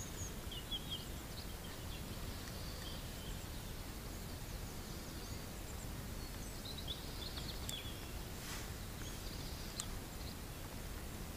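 Faint outdoor ambience: scattered short bird chirps and twitters over a steady low background rumble.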